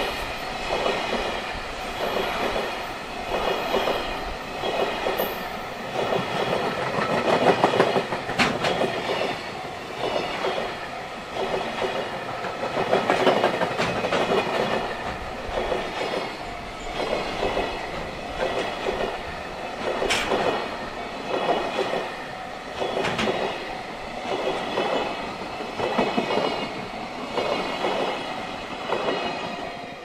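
A JR Freight container train of Koki flatcars rolls past at speed. Its wheels clatter over the rail joints in a steady rhythm of pulses about every second or so, over a continuous metallic ringing from the wheels on the rails. The sound fades as the last wagon passes near the end.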